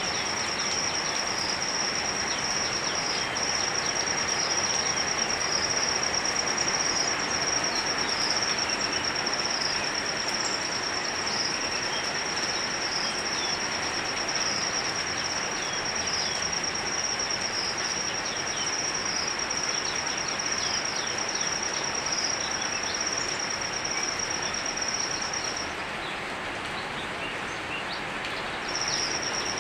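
Steady rain falling. Over it runs a steady high-pitched shrill tone that breaks off for a few seconds near the end and then returns.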